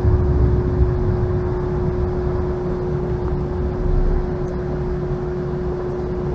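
Interior of a Siemens S70 streetcar slowing into a stop. A low rumble from the running gear eases as the car slows, under a steady hum.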